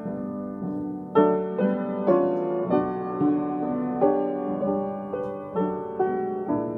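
Instrumental piano music at a gentle pace, a new note or chord struck about every half second and left to ring and fade.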